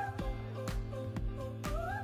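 Pop song playing as background music, with a steady beat of about two drum hits a second and a sliding melody line.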